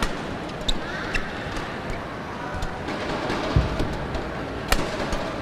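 Badminton rally: a few sharp, separate clicks of rackets striking the shuttlecock, the loudest about three-quarters of the way through, over the steady murmur of an indoor arena. A low thump comes a little past halfway.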